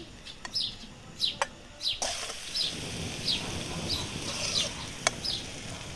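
A bird calling over and over in short, falling, high chirps, about three every two seconds, with a few sharp metal clicks of a spatula against the wok as fried potato pieces are lifted out. A steady hiss comes in about two seconds in.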